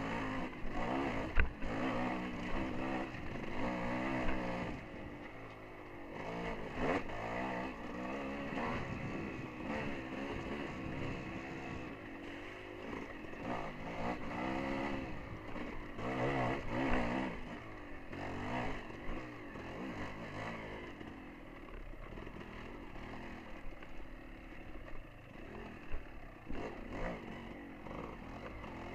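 Dirt bike engine riding a rough forest trail, its revs rising and falling again and again as the throttle is worked, with a few sharp knocks over the uneven ground.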